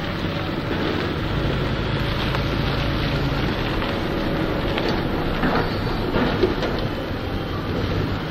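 A car driving: steady road and engine noise heard from inside the cabin, with a few faint knocks a little past the middle.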